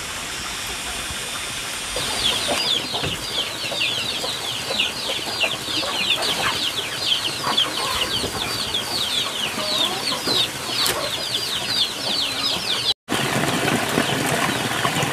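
Chicks peeping: a dense run of short, high, falling peeps, several a second, that starts a couple of seconds in and stops abruptly near the end.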